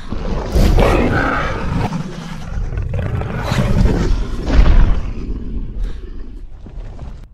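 Dinosaur roar sound effects from an animated film: rough, deep roaring that swells about half a second in and again around four seconds in, then fades toward the end.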